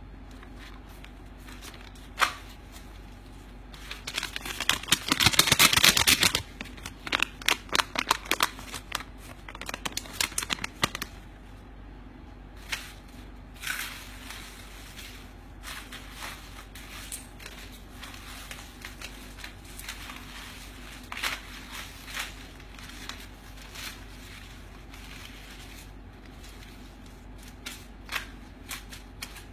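Paper banknotes handled by hand: a thick stack of bills riffled in a fast, loud flutter of crisp snaps about five seconds in, then scattered rustles and flicks as loose notes are pushed and gathered.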